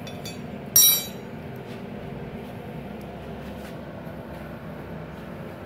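A single sharp metallic clink with a short ring about a second in, a steel tool knocking against the freshly welded steel flat bar, over a steady low hum.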